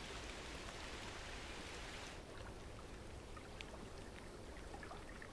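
Light rain falling on a lake's surface: a faint, steady hiss with scattered small drop clicks. The hiss thins out about two seconds in.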